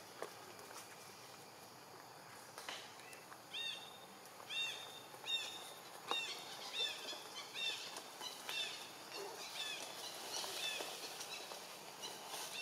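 A bird calling a repeated series of short, high, arched whistled notes, about one a second, beginning a few seconds in, against a faint forest background.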